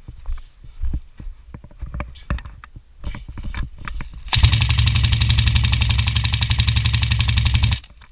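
Scattered knocks and clicks, then an airsoft gun firing one long full-auto burst close by: very rapid, even shots for about three and a half seconds that stop abruptly.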